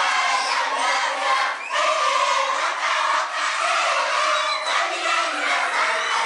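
A roomful of schoolchildren cheering and shouting together, many voices at once.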